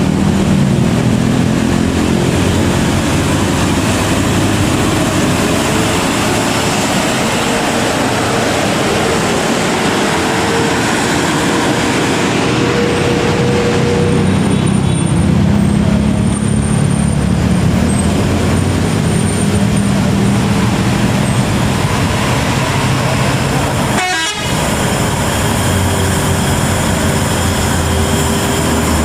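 Large buses and trucks running their diesel engines in slow, queued traffic on a hill climb, with horn toots among the engine noise. The sound dips briefly about three-quarters of the way through.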